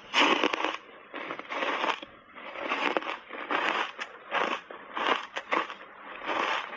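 Close crunching of ice being chewed, an ice bar coated in matcha tea powder, with short grinding crunches about twice a second and sharp cracking clicks among them.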